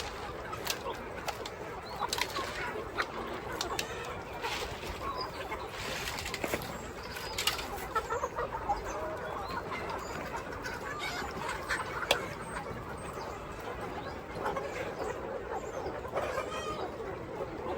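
A flock of chickens clucking, with many scattered sharp clicks and knocks.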